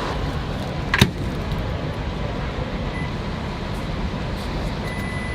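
Microwave oven running steadily as it heats a packaged vending-machine meal. There is one sharp click about a second in, and a high steady beep starts near the end.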